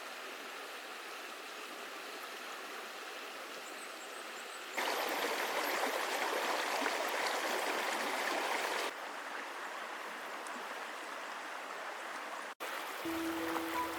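Stream water flowing and rushing steadily, cut together from several takes: it jumps louder about a third of the way in and drops back about two thirds in. Music with held notes comes in near the end.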